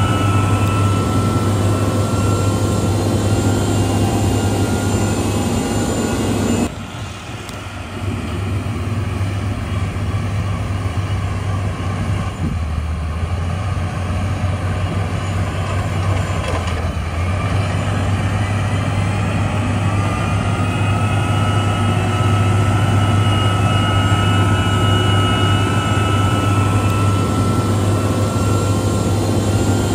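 Heavy diesel engine of road-building machinery running steadily: a low drone with a steady whine over it. About a quarter of the way in, it suddenly turns quieter and duller, then builds back up over the next ten seconds or so.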